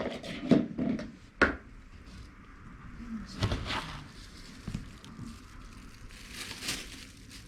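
A few scattered knocks, taps and rustles of household handling, the loudest two close together about a second in and more around three and a half seconds and near the end.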